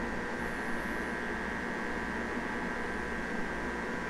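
Steady electrical hum with an even hiss behind it, unchanging throughout: room tone with no distinct event.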